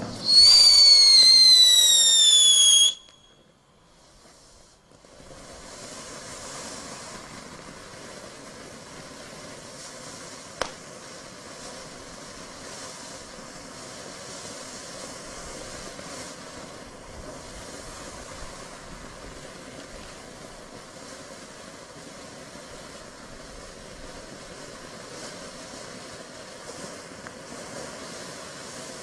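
Aurora Borealis ground firework fountain. It opens with a loud whistle falling in pitch that stops abruptly after about three seconds, then after a short lull settles into a steady hiss of spraying sparks, with one sharp pop about ten seconds in.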